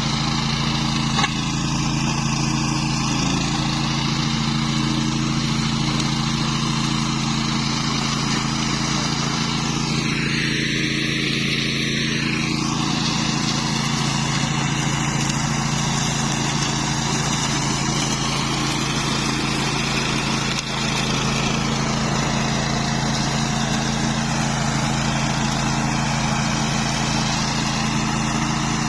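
Engine of a flail mower with a chopping rotor running steadily, with a brief change in its sound about ten seconds in.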